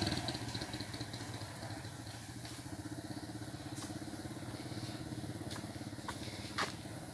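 A motorcycle engine dies away over the first second, then a steady low engine hum carries on, with a few faint clicks in the second half.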